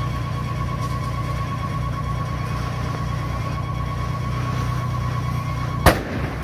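Steady drone of a fire engine running its pump while hoses are in use, with a steady high tone over it. A single sharp knock about six seconds in is the loudest moment.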